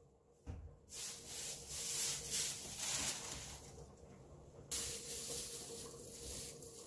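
Dry rustling hiss in two stretches: it starts about a second in, breaks off sharply and restarts louder near the five-second mark, then fades near the end. A faint low thump comes about half a second in.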